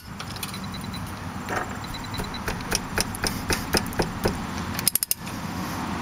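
Hand ratchet clicking as it turns a triple-square bit socket on an already-loosened rear brake caliper bolt: a run of sharp clicks about four a second, then a few more close together near the end.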